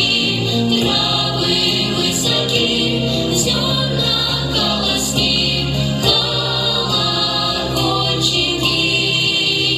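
Vocal group singing together in chorus, a song performed with music.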